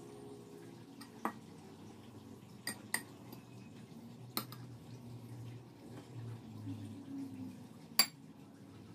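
Five short, sharp clinks of a fork and glass mixing bowls on a kitchen counter, the loudest near the end.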